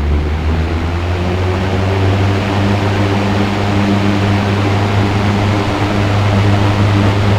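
Mid-1970s Manning Bowman 3-speed box fan running on its high setting: a steady rush of air over a low motor hum, the hum settling at full speed in the first second.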